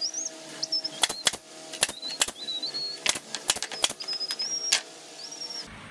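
Sharp wooden clicks and knocks, about a dozen at irregular intervals, as thin wooden strips are handled and pressed into place along a board. Short high-pitched bird chirps sound between them.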